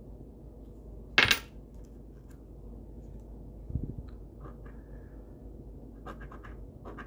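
A sharp clink about a second in and a duller knock near four seconds. Near the end come short, rapid scratching strokes as a scratch-off lottery ticket is scratched.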